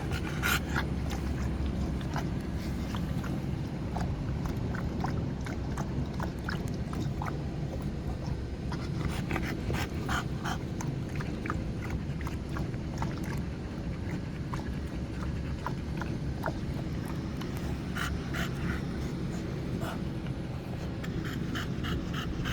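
A dog panting and snorting, with short runs of quick lapping at a water bowl, over a steady low hum.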